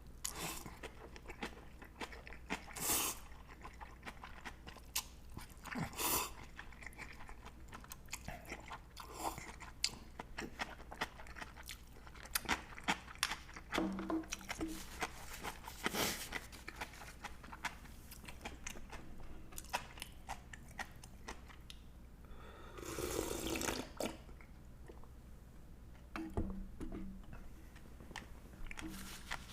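Close-miked eating sounds: chewing and crunching through a meal of spicy ramen with dumplings and side dishes, with many small clicks and a few longer, louder bursts now and then.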